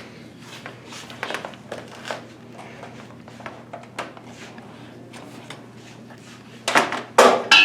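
Scattered light clicks, knocks and rustling of equipment being handled and set out, with two louder rustling or scraping noises near the end.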